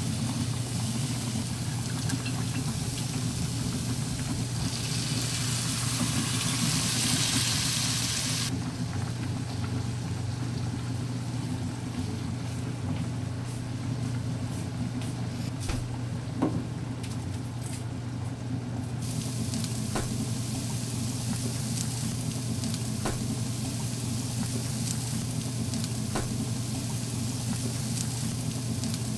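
Food sizzling in a frying pan while being stirred, with scattered light clicks of the utensil against the pan and a steady low hum underneath. The sizzle fades for about ten seconds in the middle, then comes back.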